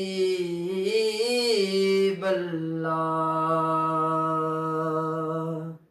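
A man singing an Urdu naat unaccompanied: the melody rises and falls, then settles into one long steady note held for about three seconds that cuts off suddenly near the end.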